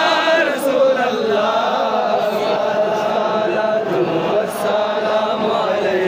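A large crowd of men chanting together in a steady, drawn-out chorus.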